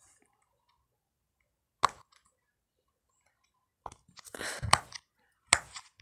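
Silicone pop-it fidget toy bubbles being pressed in, giving sharp squishy pops: a single loud one about two seconds in, then several more near the end with a short stretch of rubbing and pressing noise between them.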